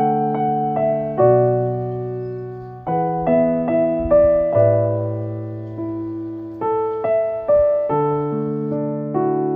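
Background music: a slow, gentle piano piece, its notes and chords struck every second or so and left to ring and fade.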